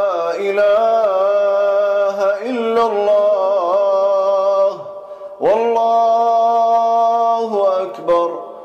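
A man reciting the Quran unaccompanied in the melodic Baghdadi style, with long held, ornamented notes. A short breath break comes about five seconds in, then another long held note.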